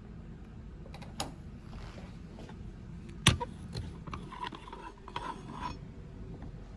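Lab bench equipment being handled: a light knock about a second in, then a sharp knock about three seconds in as the Bunsen burner is set down on the bench. After it come a couple of seconds of rattling and scraping, with a low steady hum underneath.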